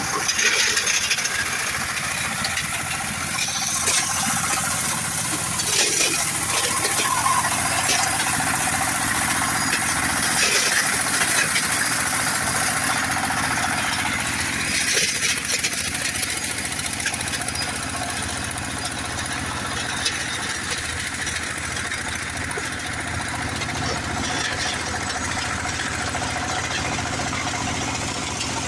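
Stone-crushing machine running steadily, grinding river stone into sand, with short clattering knocks of stone inside the crusher every few seconds.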